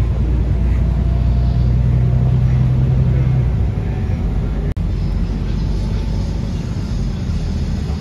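Inside a moving double-decker bus: steady engine drone and road rumble, with a low engine hum that fades out about three and a half seconds in. There is a split-second cut-out just past the middle.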